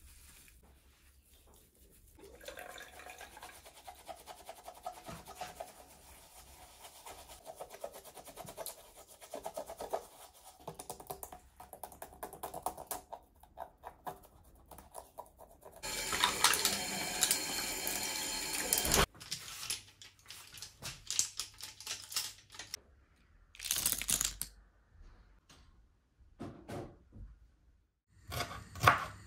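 Kitchen tap running into a sink in several short spells, the longest about three seconds midway, between scattered small knocks.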